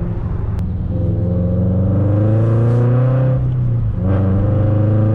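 Subaru BRZ's flat-four engine running through catless unequal-length headers and a single-exit catback, pulling under throttle with its pitch climbing, dropping about three and a half seconds in as it shifts up, then climbing again.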